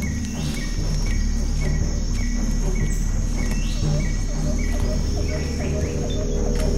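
Background music: a repeating high chirping figure about three times a second over a steady, shifting bass.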